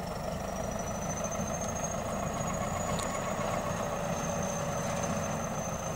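Crawler bulldozer's diesel engine running steadily as it pushes earth, its pitch rising slowly over the first couple of seconds and then easing back slightly.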